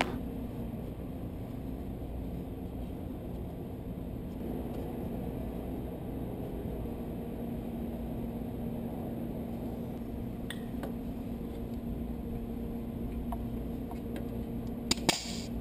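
Steady low mechanical hum with a faint held tone, with a few sharp clicks about a second before the end.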